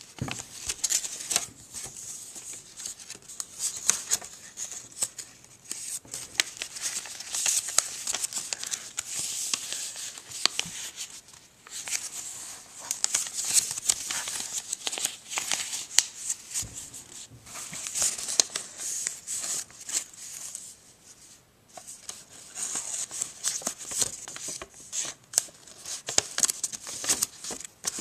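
A sheet of origami paper being handled and folded by hand: irregular rustling and crinkling with crisp creasing clicks, in bursts with short pauses.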